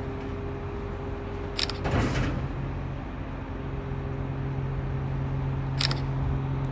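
Two short camera-shutter clicks from a Samsung Galaxy S23 Ultra, about four seconds apart, as moon photos are taken, over a steady low hum.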